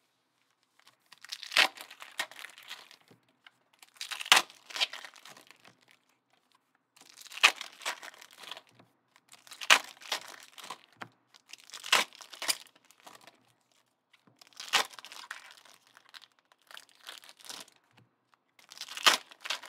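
Trading card pack wrappers being torn open and crinkled one after another: about eight short bursts of crackling and tearing, one every two to three seconds.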